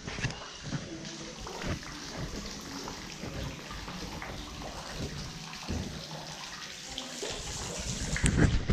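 Water running and splashing into a koi pond: a steady, even trickle, with a low bump near the end.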